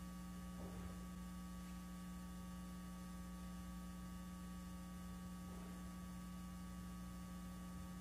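Faint, steady electrical mains hum: a constant low buzz with a few fainter higher tones over it.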